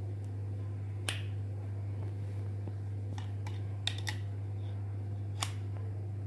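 About six sharp, scattered metal clicks and taps from tools being set on a bearing puller gripping a ceiling fan's ball bearing, over a steady low hum.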